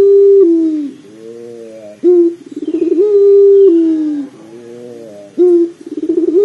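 Puter pelung (long-voiced Barbary dove) cooing. Each call is a short note, then a quick rolling trill that rises into a long held coo, which drops in pitch at its end; the calls repeat about every three seconds. One call ends about half a second in, a full call follows about two seconds in, and a third begins near the end, with much fainter cooing in the gaps.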